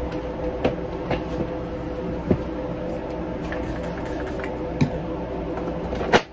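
Steady hum of a parked Boeing 737's cabin air system, with scattered light clicks and knocks from wiping down the jumpseat and interphone handset; a sharper click comes near the end.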